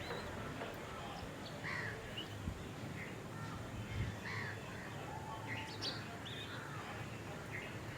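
Several wild birds calling: short chirps and whistled notes, some rising or falling in pitch, scattered irregularly over a steady low background noise.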